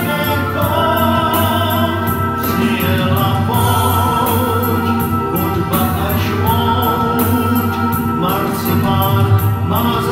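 Music from a pop song's recorded backing track playing through a PA speaker, with a keyboard-like melody over a steady bass.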